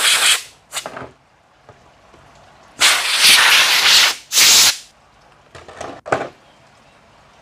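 Compressed-air blow gun hissing in short bursts, then a longer blast of about a second and a half, blowing dust off an RC car chassis.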